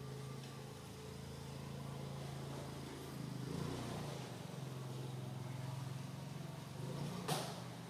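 A steady low motor hum, the pitch wavering briefly about three to four seconds in, with a single sharp click near the end.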